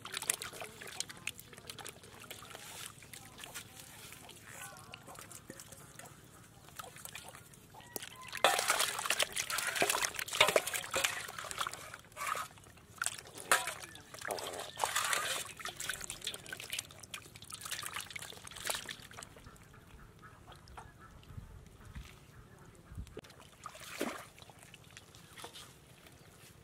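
Muddy water sloshing and splashing in a steel basin of live catfish and eels as water is scooped and poured in with a small steel bowl. The splashing is busiest and loudest in the middle, then tails off to occasional sloshes.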